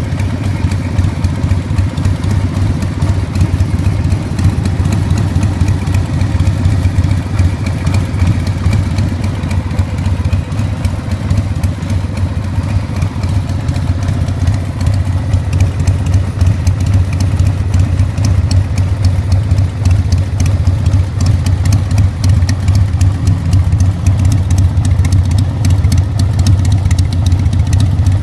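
1992 Harley-Davidson XLH1200 Sportster's air-cooled Evolution V-twin idling steadily, heard through Harley's genuine optional silencers.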